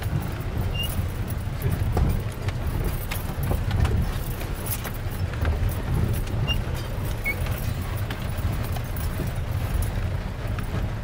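Jeep cabin on a rough, rocky dirt road: a steady low engine and road rumble, with irregular knocks and rattles as the vehicle jolts over stones.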